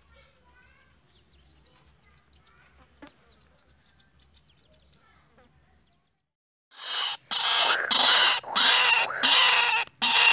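Faint bird chirps and peeps, with a quick run of high ticks, for about six seconds. After a brief drop-out, a much louder, hissy noise takes over, broken by a few sudden gaps.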